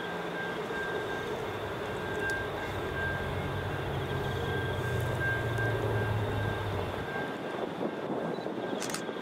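Low engine drone of a distant approaching diesel locomotive over steady outdoor background noise. The drone swells in the middle and drops away about seven seconds in.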